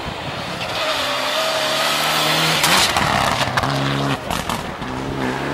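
Rally car engine running hard as the car approaches and passes close by, loudest about halfway through, with its note breaking off and restarting several times as it shifts gears, over the rush of tyres on the stage.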